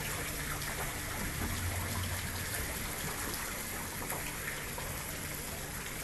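Waterfall: a steady rush and patter of falling water.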